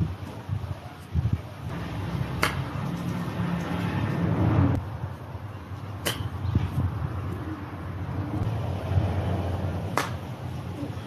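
60-degree wedge chipping golf balls off grass: three sharp clicks of the clubface striking the ball, about three and a half seconds apart, over a low steady rumble.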